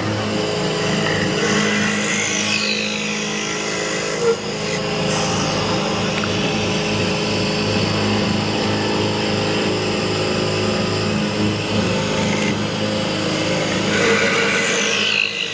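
A motor-driven machine running steadily with a low hum, while a high tone slides downward twice, about two seconds in and again near the end.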